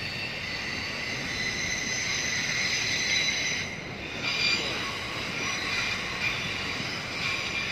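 Stadler FLIRT electric multiple units moving slowly through the station tracks: a continuous rolling noise with high, steady squealing tones over it.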